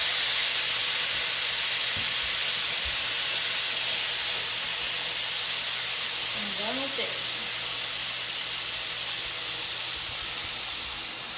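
Raw chicken strips sizzling steadily as they fry in butter in a hot skillet.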